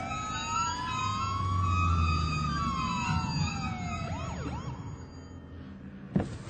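Police car siren winding up and then winding down and fading, over the low rumble of a car engine. A single sharp knock comes near the end.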